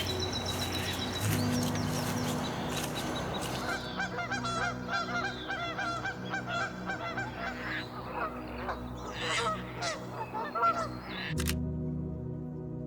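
Waterfowl honking, many quick calls overlapping for several seconds, over soft background music; a little before the end the bird calls stop and only the music goes on.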